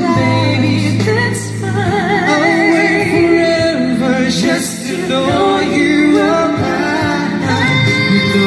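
Two men singing a ballad into microphones, holding long notes with a wavering vibrato, over a backing track that sustains chords underneath.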